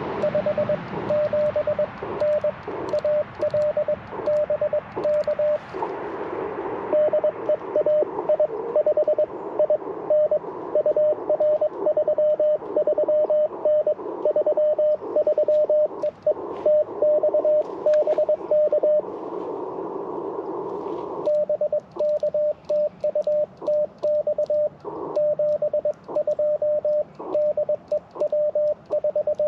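Morse code (CW) from an Icom IC-705 transceiver: one steady high tone keyed in quick dots and dashes. Receiver hiss fills the gaps and swells in two short pauses, one about six seconds in and one from about nineteen to twenty-one seconds.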